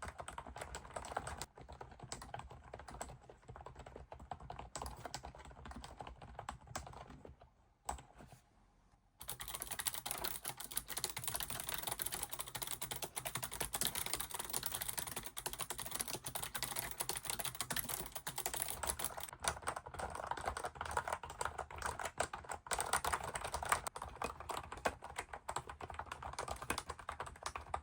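ABKO MK108 membrane keyboard being typed on in fast, continuous runs of keystrokes. The typing stops briefly about eight seconds in, then resumes louder and brighter.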